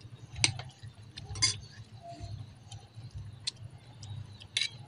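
Metal spoons clinking and scraping against ceramic bowls and plates, a handful of sharp, irregularly spaced clinks over a low steady hum.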